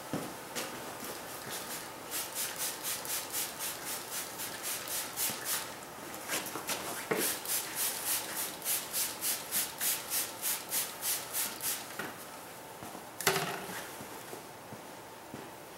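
Hand-pump spray bottle being squirted over and over at about three squirts a second, in two runs with a short pause between them, onto a package of bees. A single sharp knock follows near the end.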